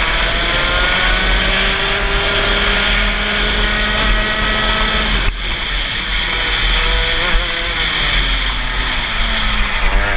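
Rotax two-stroke kart engine at full throttle, its note climbing as the kart gathers speed. The throttle lifts sharply about five seconds in, and the pitch then falls and wavers as the kart slows into a corner.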